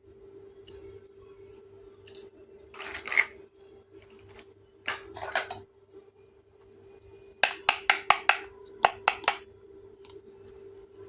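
Small toy kitchen dishes and utensils clinking and clicking as they are handled and set down. A brief cluster comes about three seconds in and another after five seconds, then a quick run of about a dozen clinks near the end, over a faint steady hum.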